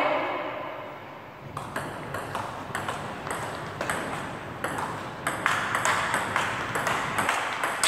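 Table tennis rally: the ball clicking off the paddles and the table in quick alternation, about three hits a second, starting about a second and a half in.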